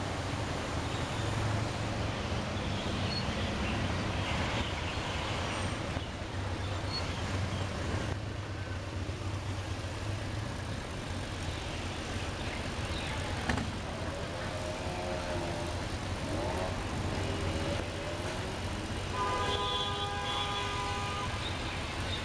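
Steady road and traffic noise heard from inside a car in slow city traffic, with a low engine hum. A few wavering tones come about two-thirds of the way through, and a stack of tones switches on and off rapidly near the end.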